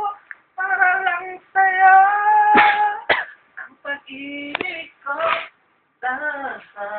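A man singing a Tagalog love ballad unaccompanied, in a high voice, in held phrases broken by short pauses, with a few sharp clicks between notes.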